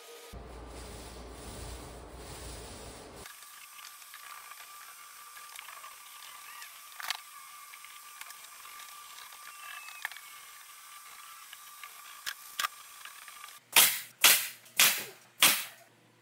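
A nail gun firing four times, about half a second apart, driving nails into trim. Before it there is only a faint steady hum with a few light clicks.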